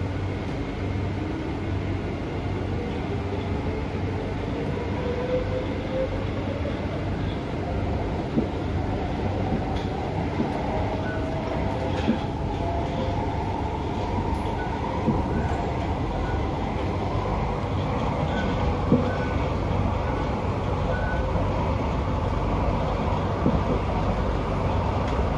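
Kawasaki C151B metro train heard from inside the car while running: a steady rumble of wheels on the track, with a whine that climbs slowly in pitch as the train picks up speed, and a few light clicks.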